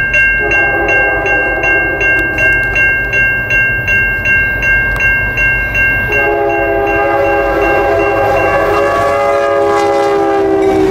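A Canadian National freight locomotive's multi-note air horn sounds two long blasts as the train nears the crossing; the second begins about six seconds in. Underneath, the grade-crossing bell rings steadily at about two strikes a second, along with the low rumble of the approaching train.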